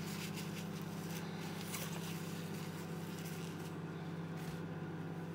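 Steady low electric hum of a running kitchen appliance motor, with a few faint light clicks.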